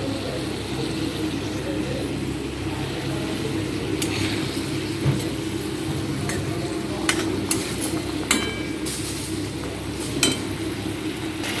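Fish curry gravy sizzling and bubbling in a pan over a steady low hum, with a metal spatula scraping and knocking against the pan several times in the second half as fried fish pieces are turned in the gravy.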